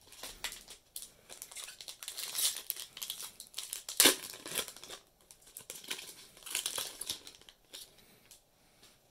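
Foil wrapper of a Magic: The Gathering booster pack crinkling as it is handled and torn open, with many quick crackles. It is loudest in one sharp tear about four seconds in and dies down near the end.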